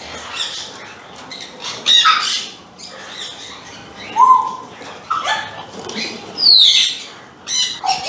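Parrots calling: several short, shrill squawks. The loudest come about two and four seconds in, and one falls sharply in pitch near the end.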